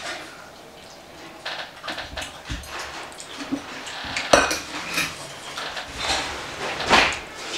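Metal spoon clinking and scraping against a stainless steel bowl while eating soup, in short scattered clinks, with the sharpest ones about halfway through and near the end.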